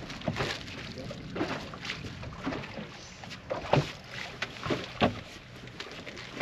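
Water slapping against the hull of a bass boat: irregular knocks and splashes about every half second to a second, over a steady low rumble.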